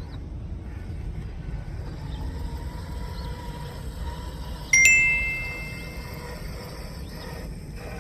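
A single bright metallic ding, ringing with two clear tones and fading over about a second and a half, a little past halfway, over a steady low rumble.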